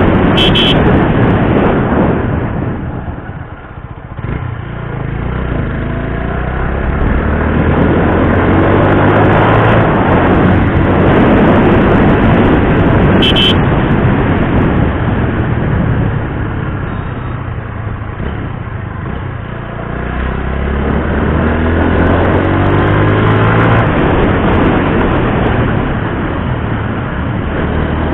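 TVS Apache RTR 160 4V's single-cylinder engine running, its pitch shifting up and down under a loud, steady rushing noise. It drops quieter briefly about three to four seconds in.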